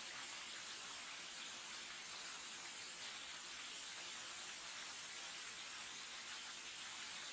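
Steady, faint hiss, strongest in the high range, with no distinct events and no clear sound of the receding streetcar.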